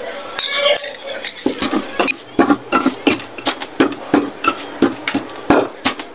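A metal spoon knocking and scraping against a stone mortar, about three strikes a second, as chilies, salt and sugar are mashed together into a dipping sauce.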